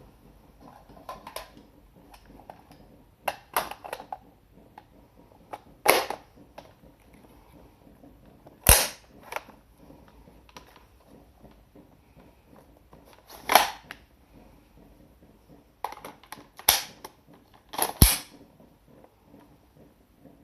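Airsoft M4 replica rifle being reloaded: a string of sharp, separate clacks a second or a few seconds apart as the magazine and parts are worked, the loudest few strongly snapping.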